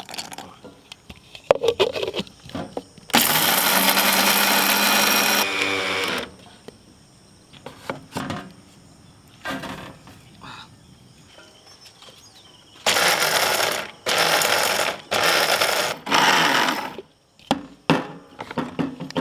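Electric mixer grinder running, grinding cashew nuts to powder in its steel jar. It runs once for about three seconds, then later in four short pulses in quick succession. There are brief knocks and clicks of handling between the runs.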